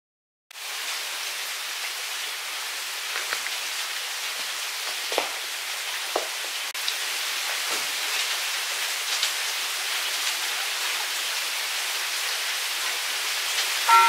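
Heavy rain falling steadily, with a few louder drips standing out now and then.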